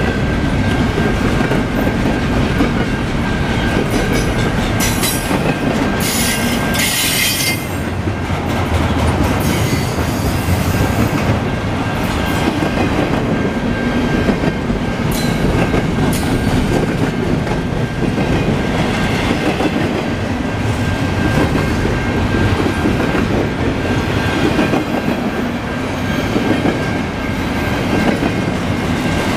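Double-stack intermodal container well cars of a freight train rolling past, a steady rumble and clatter of steel wheels on the rails. A thin steady high tone runs underneath, and short high-pitched screeches come about five to seven seconds in.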